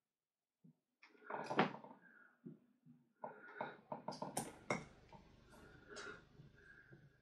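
A hand-held bonsai cutter biting into the wood and bark of a Japanese maple trunk: a run of irregular sharp clicks, cracks and small crunches, loudest about a second and a half in and again around four and a half seconds.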